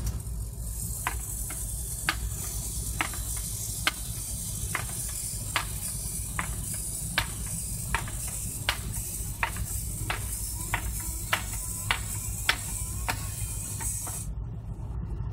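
Motorised LEGO Technic walking robot running, a steady hum and hiss under sharp clicks or taps roughly every three-quarters of a second as its legs step along the shelf. The sound cuts off abruptly near the end.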